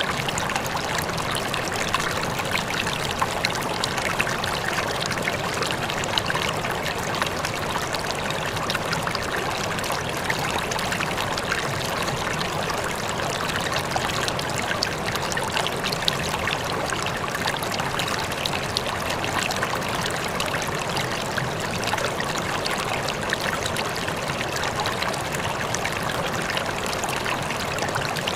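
Waterfall: water falling and splashing in a steady, unbroken rush, flecked with small splashes.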